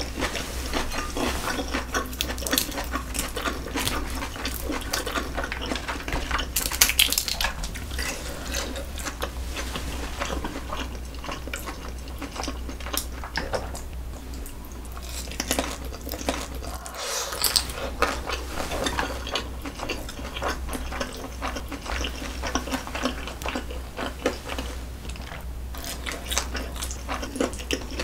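Close-miked eating sounds: wet chewing of saucy noodles and chicken, with chopsticks clicking against a plastic food tray, and a couple of louder wet bursts about a quarter of the way in and again past halfway.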